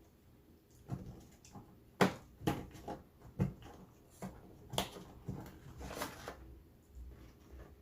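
Close-miked eating sounds: a run of irregular short clicks and crunches from chewing, about two a second, starting about a second in.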